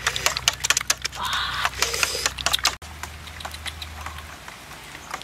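Metal spoon beating raw eggs in a stainless steel bowl: rapid clinks and scrapes of the spoon against the bowl. After a sudden cut about three seconds in, fainter, sparser ticks go on.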